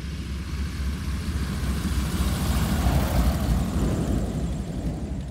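Weatherly 620B ag plane's nine-cylinder Pratt & Whitney R-985 radial engine and propeller running at power, a low rumble under a rushing noise. It grows louder to about three seconds in, then fades, as in a pass by the microphone.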